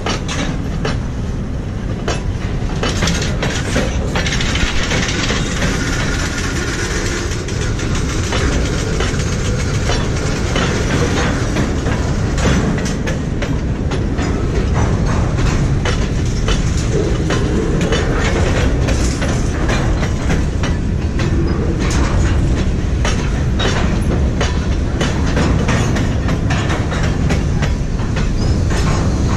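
Freight cars (boxcars and covered hoppers) rolling past on steel wheels: a steady low rumble with frequent clicks and clacks as the wheels pass over rail joints.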